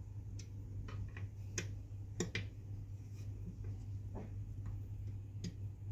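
Scattered faint clicks and light taps, about ten in all at uneven spacing, as a hand handles the metal seat mechanism plate and its bolts and knob on a gaming chair. A steady low hum runs underneath.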